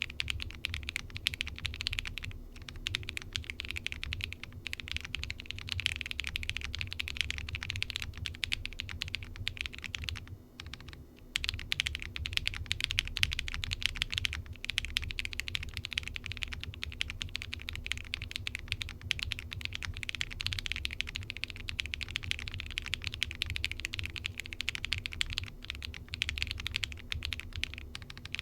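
Continuous typing on a Windx R2 mechanical keyboard with factory-lubed Alflion Melody switches, a polycarbonate plate and Osume Tsukimi keycaps, keystrokes coming thick and fast with a short pause about ten seconds in.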